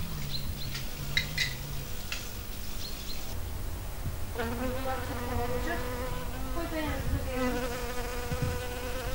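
Honeybees buzzing while foraging at flowers: a low, broken buzz at first, then a steady, fuller hum from about four seconds in.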